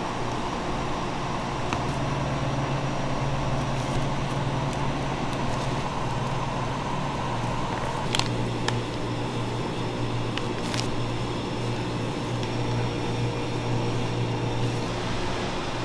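Steady low mechanical hum of kitchen machinery or ventilation, with a few light clicks now and then.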